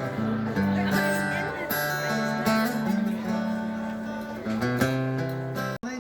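Background music: a song with strummed acoustic guitar over held bass notes, cutting out for an instant near the end.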